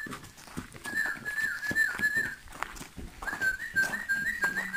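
A person whistling a held high note with small upward flicks, in two stretches with a short break between, over soft footsteps on dirt.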